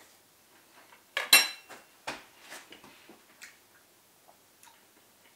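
A metal fork clinks on a ceramic plate about a second in, followed by a few softer clicks and taps.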